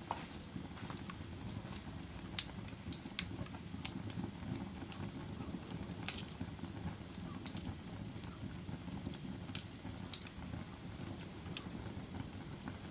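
Fire burning with a steady low rumble and irregular sharp crackles and pops, a couple of them louder than the rest.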